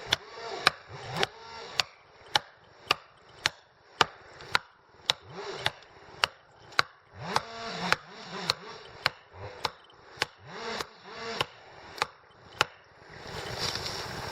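Rhythmic chopping into wood: a steady run of about two dozen sharp strikes, a little under two a second, that stops shortly before the end.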